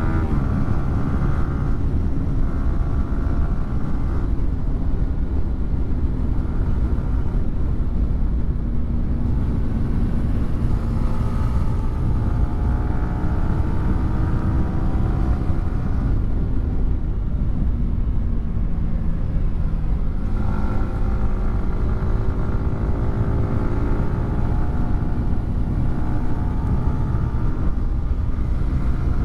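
Yamaha R15 V4's 155 cc single-cylinder engine running through a WRX GP3 aftermarket exhaust while being ridden. The engine note climbs in pitch and drops again several times as the bike accelerates through the gears, over a steady low rumble.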